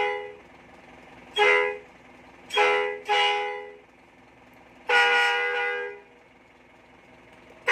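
Electric 24 V, 100-watt bus horn sounding through its speaker in blasts of one steady two-tone note. A short blast comes about a second and a half in, then two in quick succession, then a longer blast of about a second.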